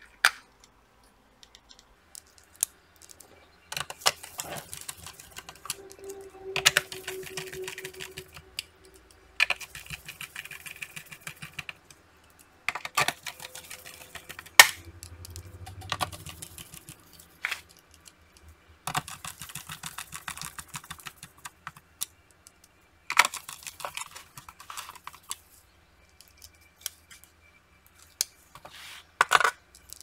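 Hands fitting an Acer Nitro 5 laptop's plastic back cover: scattered sharp clicks and snaps of plastic, with stretches of scraping and rattling handling between them.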